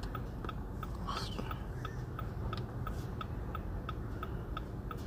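Steady electronic ticking, about three short ticks a second, while a new proximity key is being learned into a 2016 Dodge Journey's immobilizer system.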